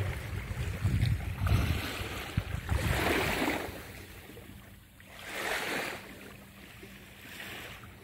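Small waves of a calm sea lapping at the shore, with two soft washes about three and five and a half seconds in. Wind buffets the microphone in the first few seconds.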